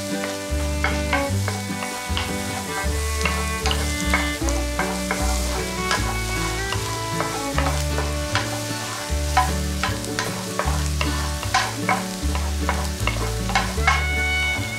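Wooden spatula stirring and scraping diced onion in a frying pan of sizzling butter, with frequent short clicks of the spatula against the pan. Background music with a stepped bass line plays throughout.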